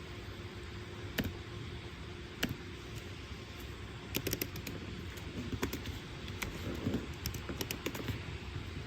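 Light clicks and taps from desk work: a few single clicks, then clusters of quick clicks in the second half, over a steady low hum.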